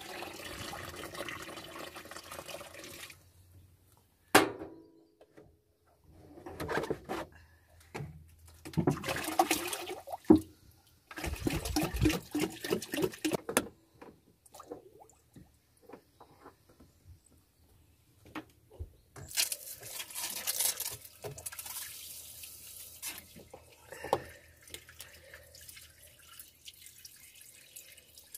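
Water poured from a metal pot into a plastic bucket, then several more bursts of pouring and splashing water with dripping in between. A sharp knock about four seconds in is the loudest sound, with smaller clicks and knocks of handling throughout.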